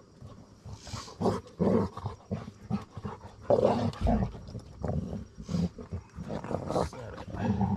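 A yellow Labrador retriever vocalizing in short, irregular bursts, with a heavier low thump about four seconds in.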